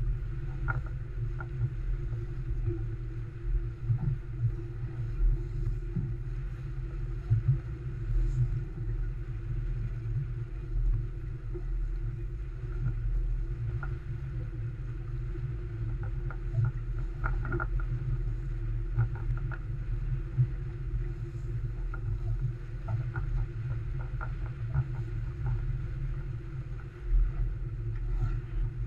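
Olson 25 sailboat underway under sail: a steady low rumble of wind on the microphone and water rushing along the hull, with scattered light ticks and knocks.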